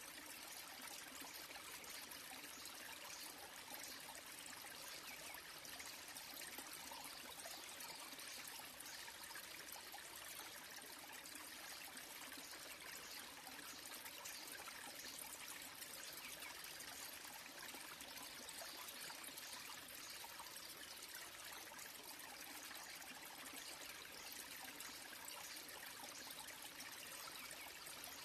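Small waterfall trickling and splashing steadily into a pool, a faint, even rush of falling water.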